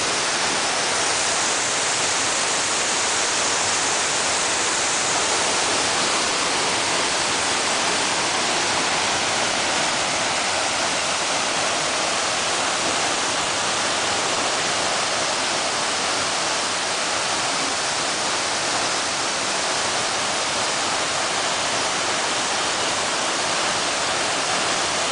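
Tiffany Falls, a tall narrow waterfall, pouring into its gorge: a steady, even rush of falling water.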